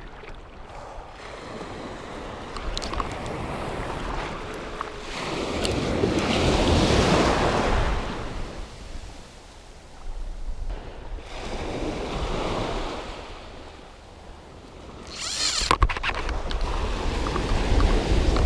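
Small sea waves breaking and washing over the shallows and up the beach, swelling and fading every few seconds, with wind rumbling on the microphone.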